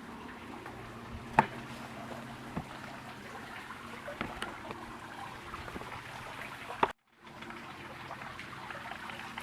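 Faint trickling water at a swimming pool over a steady low hum, with a few sharp clicks; the sound drops out briefly about seven seconds in.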